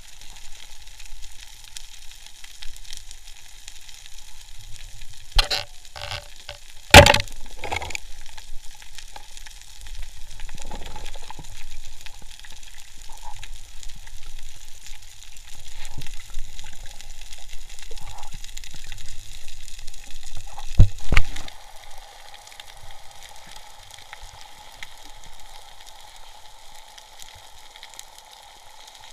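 Underwater ambience picked up by a submerged camera: a steady hiss with fine crackling, broken by a few sharp knocks about five to seven seconds in and again about twenty-one seconds in.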